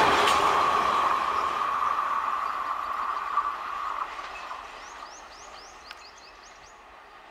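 Janshatabdi Express passenger coaches rolling away on the track, the wheel-on-rail noise fading steadily, with a steady ringing tone from the wheels that dies out about four seconds in. Near the end a bird gives a quick run of rising chirps.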